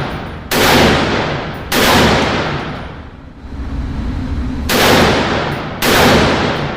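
Gunshots: four shots in two pairs, the shots in each pair about a second apart, each shot trailing off in a long echo.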